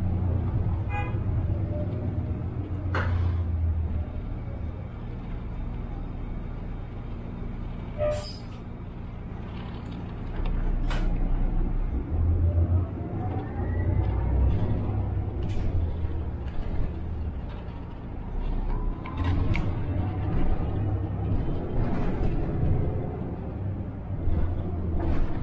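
City bus engine and drivetrain running as the bus drives, heard from inside the cabin, with a low steady rumble. A whine rises twice as the bus picks up speed, and a few sharp knocks or rattles sound along the way.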